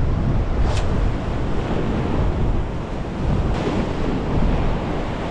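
Ocean surf breaking and washing over coastal rocks, with wind buffeting the microphone.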